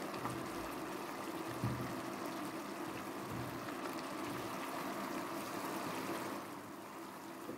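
Thick onion soup simmering in a frying pan: a steady bubbling, with a faint steady hum beneath it.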